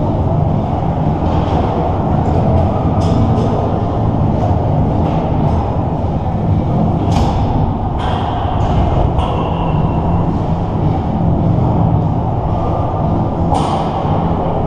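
Steady low rumble of an ice arena's background din, with a few sharp scrapes of skate blades on the ice, mostly in the second half as a skater comes up to the near goal.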